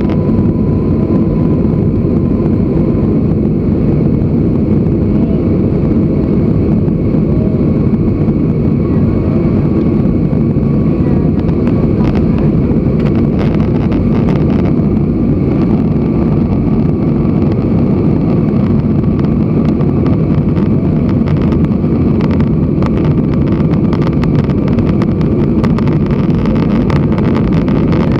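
Airliner cabin noise during the climb after takeoff: a loud, steady, deep rumble of jet engines and rushing air heard from inside an Airbus A320, with a faint high whine over it.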